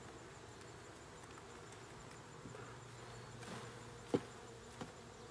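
Honeybees buzzing around an opened hive, the hum growing louder about halfway through as a brood frame is lifted out. A sharp knock comes about four seconds in, and a lighter one just after.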